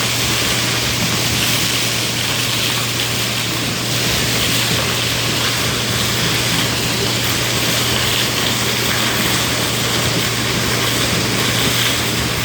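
A very large vacuum machine running steadily: an even rush of sucked air over a constant low hum.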